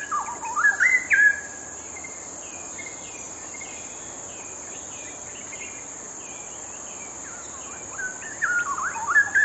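Straw-headed bulbul (cucak rowo) singing loud, fast, gliding warbled phrases in the first second and a half and again from about eight seconds, with softer repeated notes in between. A steady high-pitched insect-like drone runs underneath.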